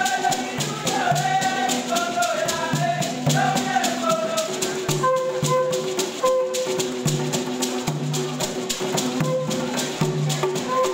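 Music for a traditional ramogi dance: shakers rattling at a fast steady beat of about four or five strokes a second, over a repeating low bass note, with a wavering melody in the first half giving way to held notes.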